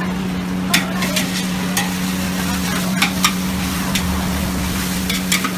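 Noodles sizzling as they are stir-fried in a large wok, with a metal ladle clanking and scraping against the wok about eight times, at uneven intervals. A steady hum runs underneath.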